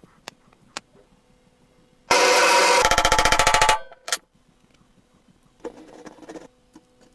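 A small motor-driven tool runs for about a second and a half with a fast, even rattle, with a few light knocks before and after.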